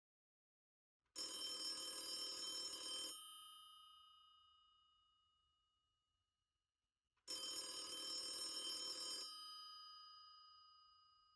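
Old-style telephone bell ringing twice, each ring about two seconds long and dying away after it stops, with about four seconds between rings.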